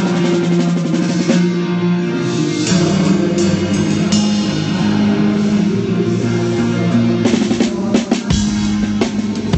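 Live pop-rock band playing during a sound check: held guitar and bass chords over a drum kit with kick and snare hits, the low end getting heavier about eight seconds in.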